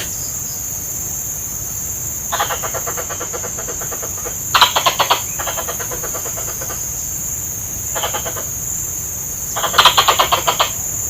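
Plantain squirrel (tupai kelapa) calling in five bouts of rapid chattering chips, each bout lasting about half a second to a second, the loudest about halfway through and near the end. A steady high-pitched hiss runs underneath.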